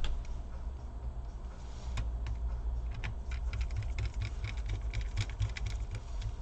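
Light, irregular clicks and ticks of small screws being handled and driven back into a laptop's plastic case with a hand screwdriver, over a steady low hum.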